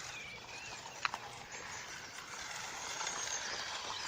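Remote-control car driving over rough ground outdoors: steady running noise with a single click about a second in and a short chirp near the start.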